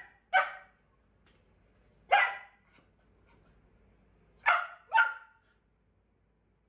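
A corgi barking: four short, sharp barks, one about every two seconds and then a quick pair near the end.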